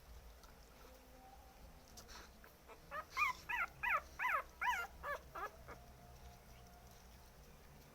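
Hungry puppies whimpering: faint high cries, then a run of about seven louder, quick cries, each falling in pitch, near the middle.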